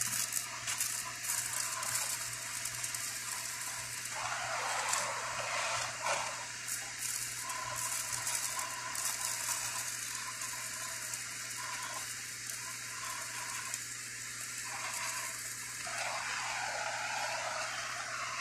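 Oxy-acetylene torch flame hissing steadily while gas-welding a seam in a car's sheet-metal body panel, with frequent crackling and popping from the molten metal.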